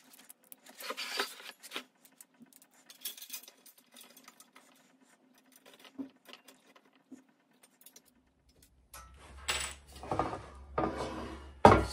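Small metal bolts and washers clinking and rattling as they are handled, with scattered light clicks. From about nine seconds in, heavier handling of the metal frame on the table top, with a sharp knock near the end.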